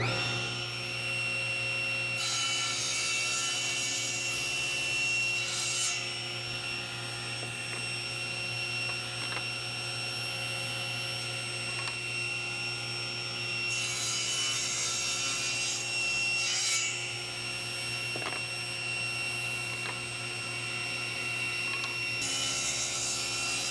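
Table saw running with a steady motor tone and making three crosscuts through walnut for angled mallet heads: one about two seconds in, another a little past the middle, and a third near the end.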